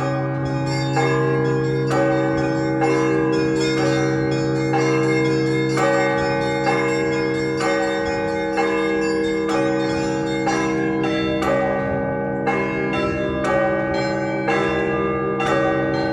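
Orthodox church bells ringing a festive peal. Smaller bells are struck in a steady pattern, with a fresh stroke about once a second, over the long-ringing hum of the larger bells.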